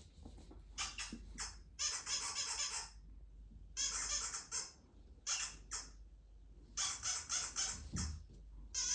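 Harsh, rasping bird squawks in about six short bursts, each under a second, with a brief low thud near the end.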